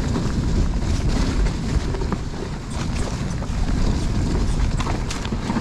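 Mountain bike riding down a wet, muddy woodland trail: a steady rumble of wind buffeting the camera's microphone and tyres rolling over the dirt, with a few sharp knocks as the bike clatters over bumps.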